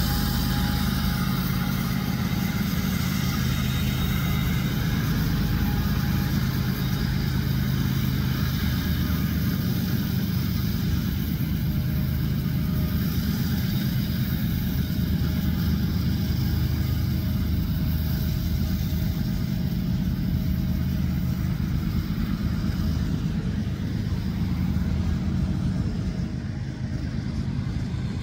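Union Pacific diesel-electric freight locomotives working hard up a grade: a steady, deep engine drone, with the freight cars rolling past on the rails.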